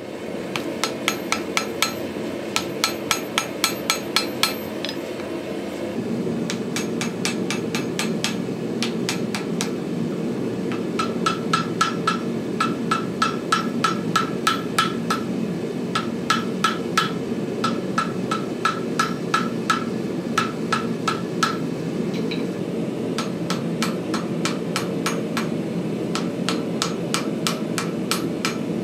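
Blacksmith's hammer forge-welding hot cable Damascus steel on an anvil in runs of fast, light blows, about three or four a second, with the anvil ringing on many strikes and short pauses between runs. A steady noise from the running forge sits underneath.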